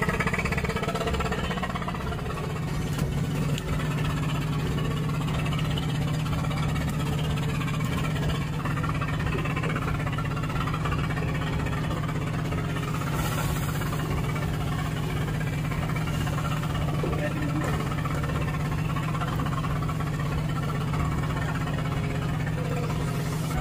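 Fishing boat's engine running steadily, a constant low hum that holds the same level throughout.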